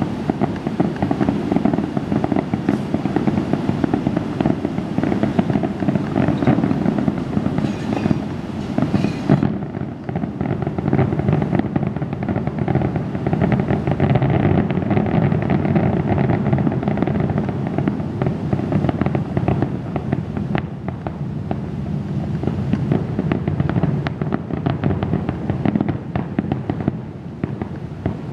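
Aerial fireworks shells bursting in a dense, continuous barrage of bangs and crackling.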